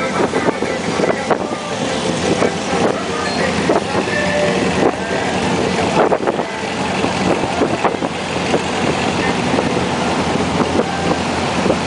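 Buggy engine running under way, with rough, uneven noise, frequent knocks and rattles, and wind on the microphone.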